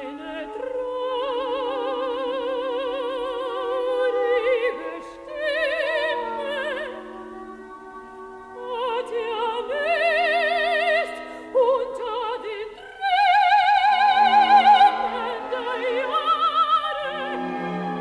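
Mezzo-soprano singing with a wide vibrato over orchestral accompaniment, in several phrases of a few seconds each; the loudest phrase, a high held note, comes about two-thirds of the way through.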